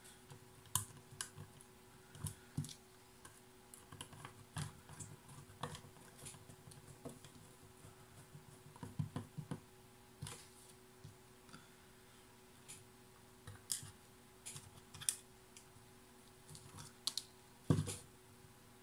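Irregular light clicks and taps of small screws and the plastic case of a portable radio-cassette speaker being handled and screwed back together.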